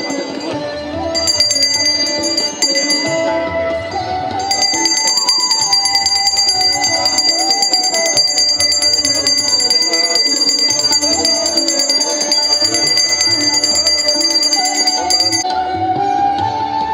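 Instrumental music with a sitar melody and tabla, with a small hand bell rung continuously over it, as at a Hindu puja. The bell drops out for about two seconds early on and stops about a second and a half before the end.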